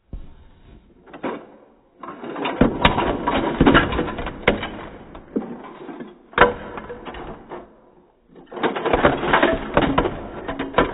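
Plastic Lego bricks clattering out of an upturned plastic toy trolley onto a tabletop: a dense rattle of clicks from about two seconds in, one sharp knock, then a second burst of clattering near the end.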